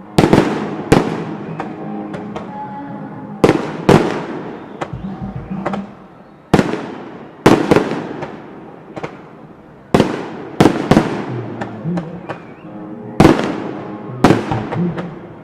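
Fireworks display: aerial shells bursting with sharp bangs, about a dozen in fifteen seconds, some in quick pairs, each trailing off in a rolling echo.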